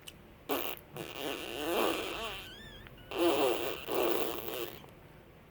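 A four-month-old baby sneezing several times, with short voiced baby sounds and a brief high squeak between the sneezes.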